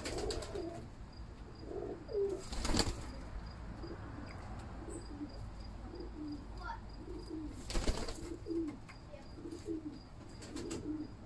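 Kamagar pigeons cooing over and over in a loft. Two short flurries of wing flapping come about two and a half seconds in and again about eight seconds in.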